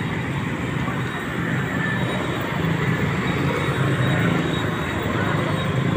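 Steady street traffic: a continuous low rumble of motor scooters, motorcycles and other vehicles passing.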